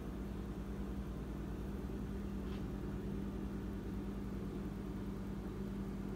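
A steady low machine hum with a constant pitch, with no speech and no music.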